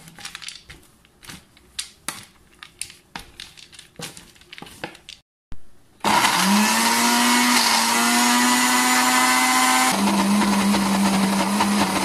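Electric mixer-grinder (mixie) grinding roasted peanuts into peanut butter. Scattered light clicks and knocks come first; about halfway through, the motor starts and runs loud and steady, its hum rising briefly as it spins up and dropping a little lower about two seconds before the end.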